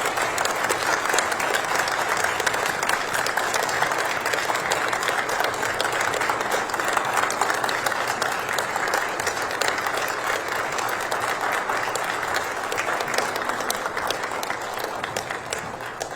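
Large audience applauding steadily, dense clapping that tapers off near the end.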